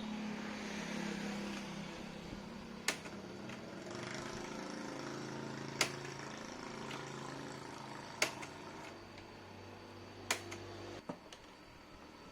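Electric box fan's switch clicking five times, a few seconds apart, over a low electrical hum from the fan's motor; the hum cuts off with a click near the end.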